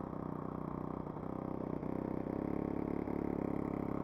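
A model aircraft's fuel-burning engine running steadily at low speed, getting a little louder about halfway through.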